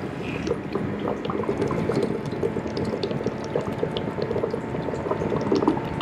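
Small 12 V submersible water pump running with a steady hum, and water gurgling, bubbling and splashing as it circulates through clear vinyl tubing and an aluminum transmission-cooler radiator.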